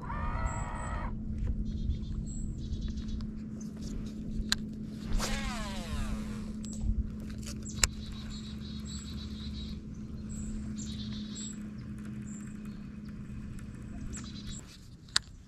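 Bow-mounted electric trolling motor humming steadily, then cutting off near the end. A brief whir sweeps up and down in pitch about five seconds in, with a few sharp clicks and short high chirps over the hum.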